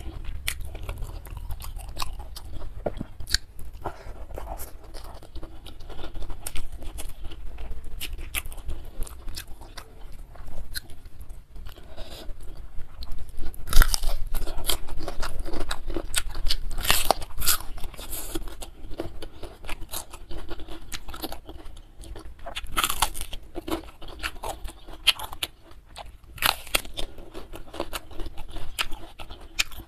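Close chewing and crunching of food, with a loud crunchy bite into a whole raw bitter melon about halfway through, followed by more crisp crunches as it is chewed.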